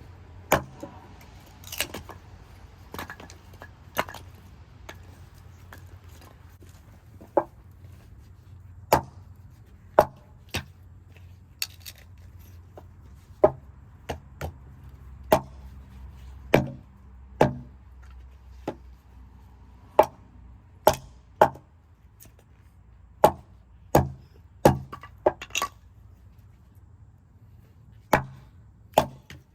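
Axe chopping and splitting wood: about two dozen sharp strikes at an uneven pace, mostly a second or so apart, with a few longer pauses.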